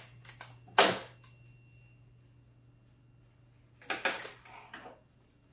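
Metallic clinks and knocks as a battery and its metal bracket are worked loose inside an anaesthesia machine. There is one sharp clink about a second in with small clicks around it, then a short cluster of rattling clinks about four seconds in.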